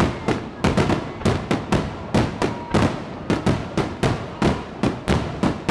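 Aerial firework shells bursting in rapid succession, sharp overlapping bangs about four a second, each with a short echo.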